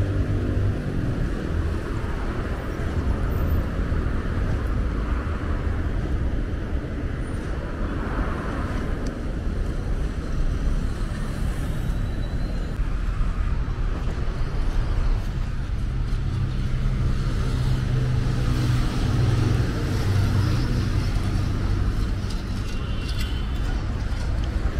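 Busy city highway traffic: cars and other motor vehicles running and passing with steady engine and tyre noise. A nearby engine hums louder at the start and again about two-thirds of the way through.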